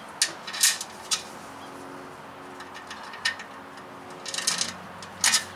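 Light metallic clicks and clinks of a bolt being pushed through drilled holes in an aluminium diamond-plate tongue box, in scattered short bursts with a louder clink near the end.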